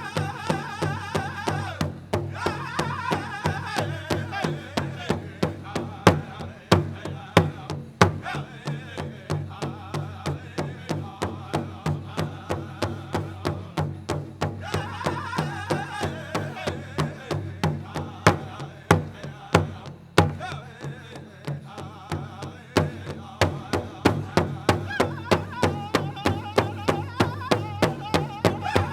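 Powwow drum group performing a men's prairie chicken dance song: a big drum struck in a steady fast beat by the singers, with group singing over it in stretches. A few much louder accented strikes come about six to eight seconds in and again near twenty seconds.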